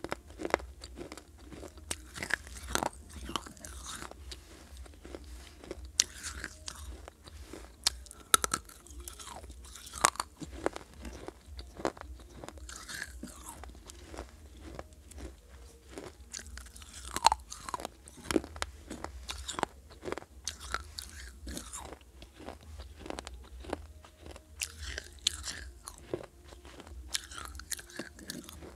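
Shards of a fired terracotta clay pot being bitten and chewed: a long run of irregular sharp crunches and cracks, with a few louder snaps.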